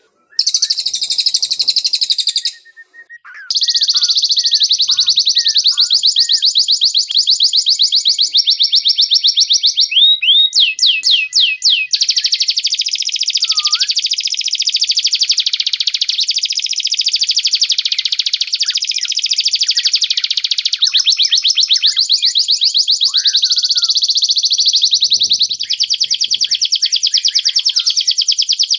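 Domestic canary singing long, fast rolling trills, with two short pauses near the start and a run of rising whistled notes about ten seconds in.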